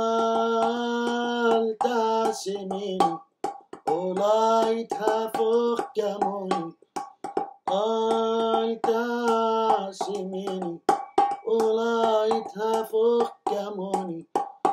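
A man singing, accompanying himself by tapping with his hands on an upturned stainless steel bowl used as a drum. The sung notes are held for a second or two at a time, with sharp taps between and under the phrases.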